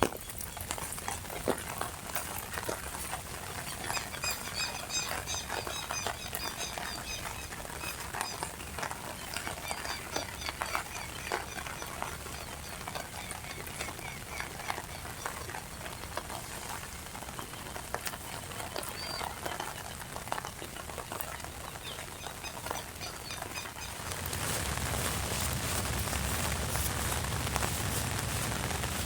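Rain falling with a steady hiss and scattered drop clicks, while small birds give repeated short high chirps. About twenty-four seconds in the chirps stop and the rain becomes a louder, fuller downpour.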